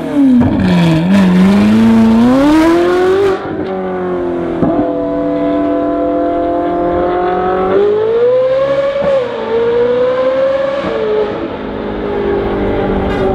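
Ferrari 458 Speciale's 4.5-litre V8 running through an Fi aftermarket exhaust, pulling away: the engine note dips, then climbs for the first three seconds. After that it sounds duller and more distant, holds a steady note, then rises and falls twice as the revs climb and drop.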